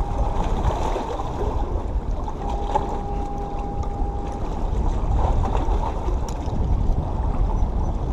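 Wind buffeting the microphone and water washing against jetty rocks, a steady rumbling noise. About two and a half seconds in, a steady whine lasts roughly two seconds as the spinning reel is cranked.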